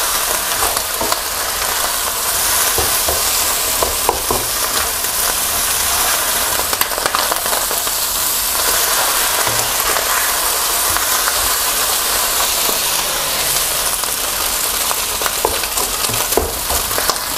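Wide rice noodles with chicken, squid and egg sizzling over high heat in a non-stick wok, the sizzle steady throughout, with scattered scrapes and taps of a wooden spatula turning them. The noodles are being left to char on the pan.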